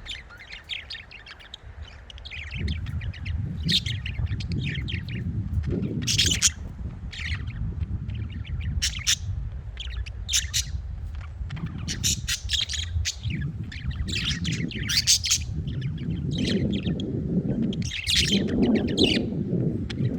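Budgerigars chirping and chattering in many quick, sharp calls, over a low rumbling noise that swells near the end.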